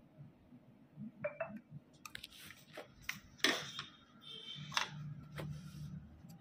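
Faint, irregular clicks, taps and scrapes of small metal hand tools handled over an engine control unit's circuit board, with a short squeak about a second in.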